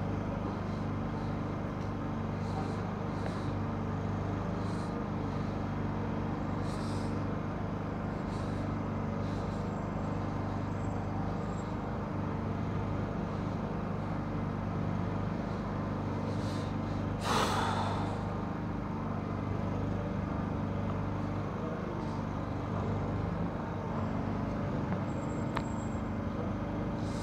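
A vehicle engine idling steadily close by, with one short hiss about seventeen seconds in.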